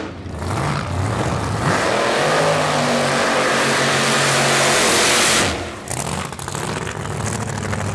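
Drag-racing Corvette's engine at full throttle, very loud, building up about two seconds in and cutting off sharply about five and a half seconds in, followed by quieter engine sound.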